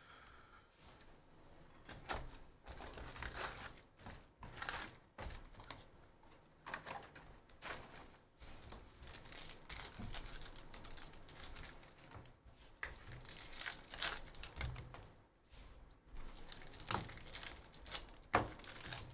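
Foil wrappers of 2023/24 Bowman University Chrome basketball hobby packs being torn open and crinkled by hand, in short irregular crackling bursts.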